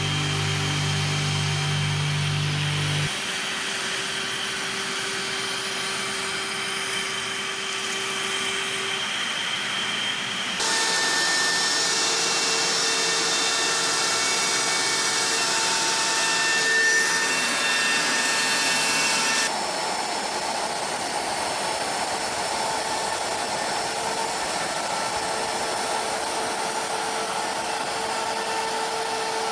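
DeWALT DWP611 compact router running at high speed as the spindle of an X-Carve CNC machine, milling wood, with a shop vacuum running on the dust hose. The sound changes abruptly twice, about a third and two-thirds of the way through.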